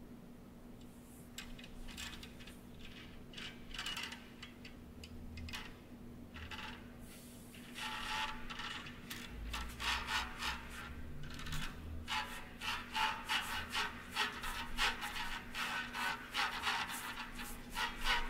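Scattered small clicks, rattles and scrapes, growing denser and louder from about eight seconds in, over a faint steady hum.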